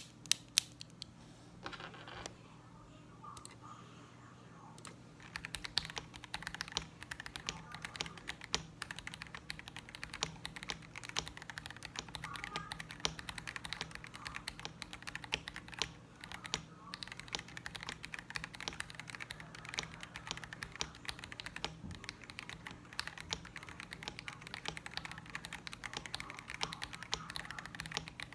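Mechanical keyboard with unlubed Bulbasaur linear switches (POM stems, polycarbonate housings) being typed on: a few sharp key strikes at the start, a lull of a few seconds, then fast continuous typing.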